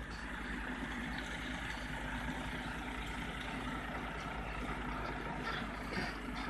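Semi-trailer truck's diesel engine running steadily at low revs as the truck manoeuvres slowly, played back sped up threefold.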